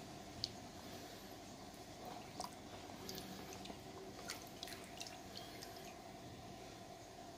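Small drips and splashes of water as a wooden slingshot frame is rinsed by hand in a basin of water and lifted out, a few short ticks mostly in the middle, over a faint steady hum.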